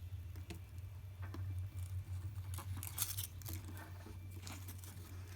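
Faint clicks and rustles of Klein Tools 11053 wire strippers being worked on solid 10-gauge wire, over a steady low hum.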